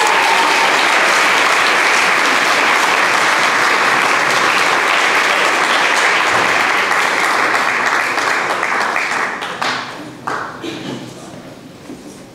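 Audience applauding steadily after a speech, the clapping dying away about nine to ten seconds in.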